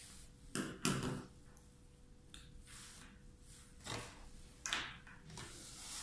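Hard plastic breast pump parts clicking and knocking as they are picked up and set down on a table, with soft rustling from a clear plastic packaging tray. The loudest knocks come about a second in, then single clicks every second or so.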